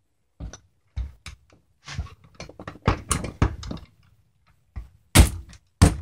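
A screwdriver working against a Mercedes GL450 seatbelt retractor, prying at its drilled-out locking gear to free it. It makes a string of short clicks and knocks, with two louder knocks about five seconds in.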